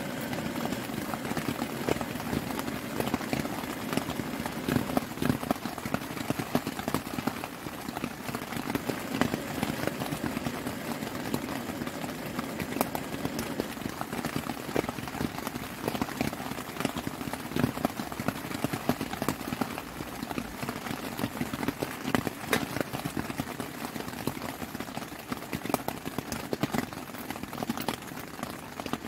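Heavy rain falling on a tent, heard from inside: a dense, unbroken stream of drop hits on the fabric.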